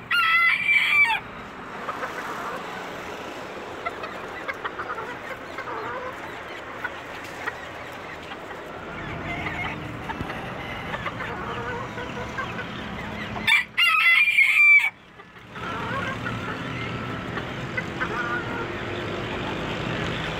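Rooster crowing twice, each crow about a second long: once at the start and again about two-thirds of the way through. Hens cluck softly in between.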